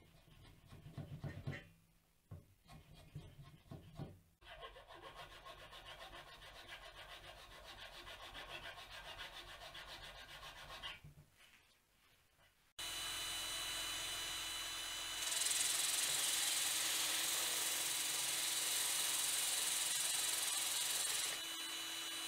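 Hand-tool strokes rasping a wooden dowel clamped in a bench vise, then a steadier rubbing for several seconds. After a short pause an electric drill runs steadily with the dowel spinning in its chuck. From a few seconds later sandpaper pressed on the spinning wood adds a louder hiss for about six seconds.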